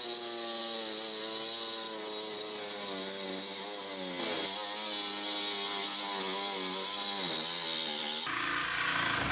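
Ryobi cordless reciprocating saw running, its blade cutting through a window's nailing fin behind wood siding. The motor whine wavers and dips in pitch twice as the blade loads. Near the end the whine gives way to a rougher, grinding sound.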